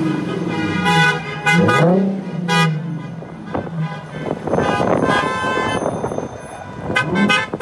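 Car horns honking repeatedly in a series of short and longer blasts, over the rumble of passing traffic.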